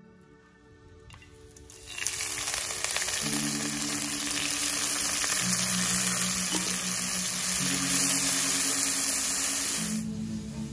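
Chopped tomato, onion and chili frying in a wok, a loud steady sizzle that starts about two seconds in and stops shortly before the end. Soft background music plays underneath.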